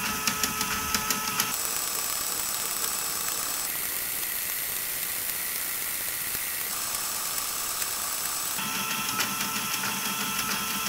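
Lego Technic large motor whirring as it turns a Lego binary counter, with the counter's reels and stepper clicking over in a fast, regular ticking. The recording is fast-forwarded, so the whir and ticking are sped up and rise in pitch through the middle before settling again near the end.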